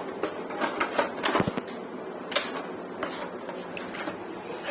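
Irregular clicks and light knocks of parts and packaging being handled, with a small cluster of them about a second in and a sharp click a little later.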